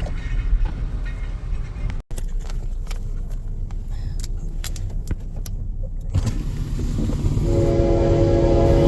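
Low steady rumble with scattered clicks, then, about three quarters of the way in, a locomotive air horn sounds a steady multi-note chord that grows louder.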